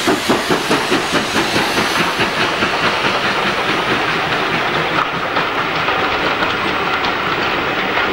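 Two-cylinder exhaust beats of the GWR 'Hall' class 4-6-0 steam locomotive No. 4920 Dumbleton Hall, about four or five a second and fading over the first few seconds as it draws away. The coaches behind it then roll past with a steady rumble and the clickety-clack of wheels over rail joints.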